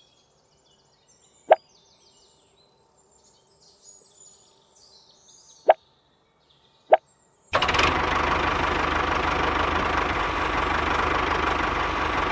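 A few sharp clicks, then a little over halfway through a small electric motor in a homemade toy tractor starts abruptly and runs steadily with a constant hum.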